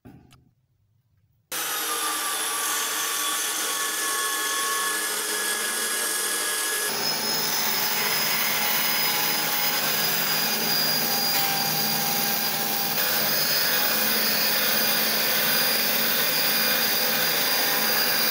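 Electric drill spinning a small wire wheel against a rusty steel blade, starting about a second and a half in: a steady motor whine over the scratch of the wheel on metal, changing in tone about seven seconds in.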